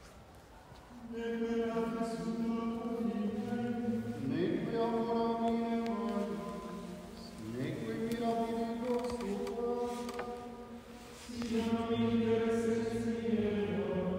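Chant-style vocal background music: voices singing long held notes in phrases that swell and fade every few seconds.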